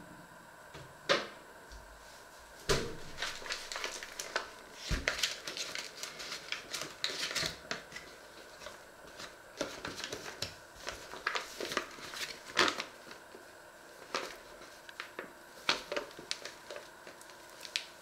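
Irregular clicks, knocks and paper rustles of kitchen items being handled and set down, with a faint steady hum underneath. Two sharp knocks stand out, about a second in and about two-thirds of the way through.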